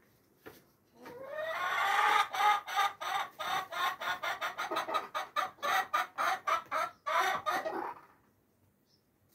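A chicken calling: a drawn-out rising note about a second in, then a long fast run of clucks at about five a second, stopping after about seven seconds.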